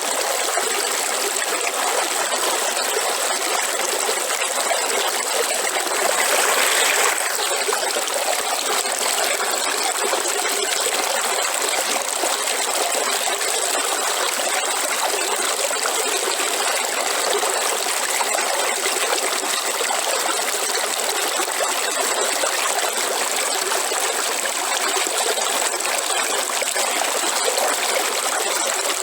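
River water flowing in a steady rush and trickle, with a brief louder surge about six seconds in.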